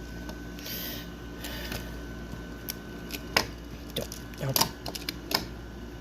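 Scattered sharp clicks and taps of hard plastic toy race cars being handled, with the loudest clicks about three and a half and four and a half seconds in.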